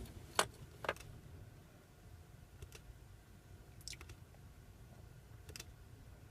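A handful of short, sharp clicks or taps, spaced out over several seconds. Two come close together about half a second apart near the start, then a few more follow singly, over a faint low hum.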